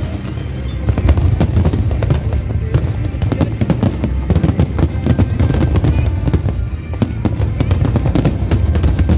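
A fireworks display: rapid, continuous bangs and crackling, with music playing underneath.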